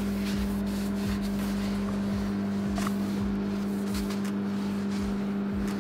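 Steady electric hum of a kitchen appliance running, one low even pitch with a fainter overtone above it, with a few faint soft knocks.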